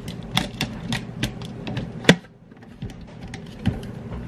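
Small clicks and taps from a slow cooker's lid and wire locking clips being handled and fastened, with one loud, sharp click about two seconds in.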